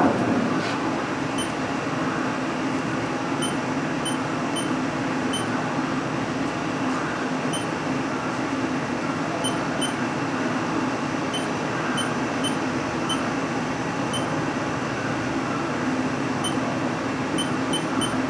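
Haas VF-3 vertical machining center standing powered up after its axis moves, giving a steady hum and hiss, with small, irregularly spaced high-pitched ticks throughout.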